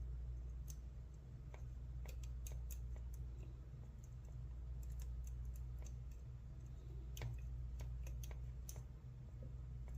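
Small, irregular metallic clicks and ticks of a half-diamond pick working the pins of a brass 4-pin dimple padlock during single-pin picking.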